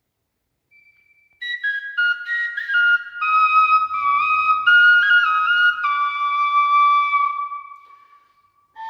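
Clay whistle, a reproduction of a pre-Columbian piece, blown in a short run of clear, stepped notes that mostly fall in pitch, ending on a long held low note that fades away. A new, lower phrase starts right at the end.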